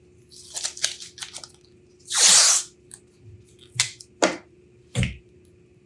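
Small objects handled on a wooden workbench: light rustling, then a loud burst of noise lasting about half a second a little after two seconds in, followed by three sharp clicks or taps.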